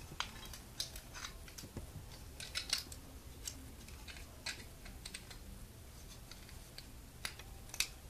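Irregular light clicks and small scrapes from hands handling a recessed halogen ceiling light fixture with its bulb seated in a ceramic GU10 socket, the loudest cluster of clicks about a third of the way in.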